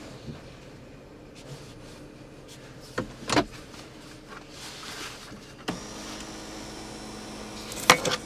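Power seat motor in a 2013 Ford Police Interceptor Explorer running for about two seconds with a steady whine, stopping with a clunk near the end. Two sharp clicks come a few seconds before it.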